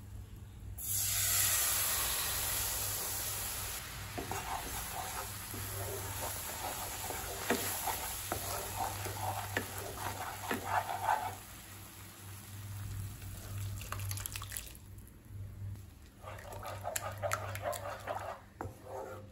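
Milk poured into hot frothing butter in a pan hisses and sizzles sharply about a second in, fading over the next few seconds. A wooden spatula then scrapes and taps against the nonstick pan as the thickening mixture is stirred, with a short pause and more stirring near the end.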